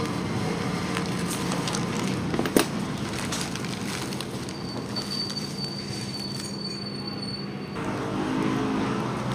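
Plastic packaging and bubble wrap crinkling and rustling as they are handled and unwrapped, with one sharp click about two and a half seconds in.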